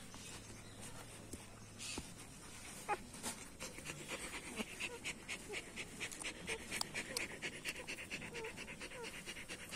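Nursing mother dog and puppies: a fast, even rhythm of breathy strokes, about five a second, that sets in a few seconds in and carries on, with a few faint short squeaks. A couple of soft clicks come before it.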